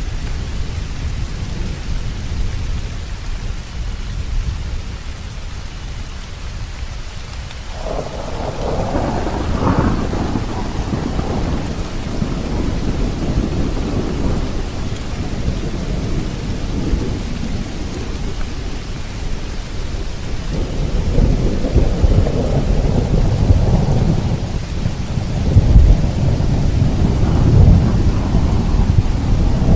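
Heavy thunderstorm: steady rain with rolling thunder. A thunder roll breaks in suddenly about eight seconds in, and more thunder builds from about twenty seconds in, loudest near the end.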